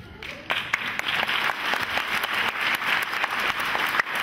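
Audience applauding: dense hand clapping that starts about half a second in and keeps up at a steady level.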